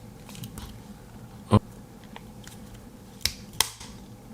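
Victorinox Soldier Swiss Army knife being handled: sharp clicks as its locking blade is worked. There is a loud click about a second and a half in, then two more in quick succession near the end.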